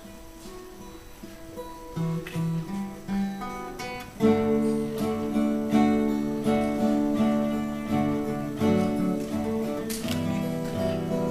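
Acoustic guitar playing. It is quiet for the first couple of seconds, a few low notes come in at about two seconds, and it swells into full, steady strummed chords about four seconds in.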